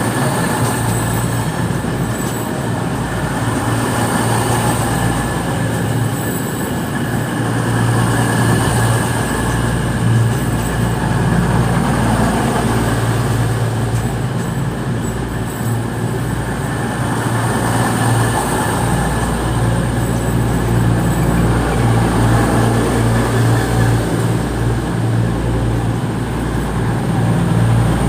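Diesel train at a station platform, its engines running with a steady low hum and a rushing noise over it.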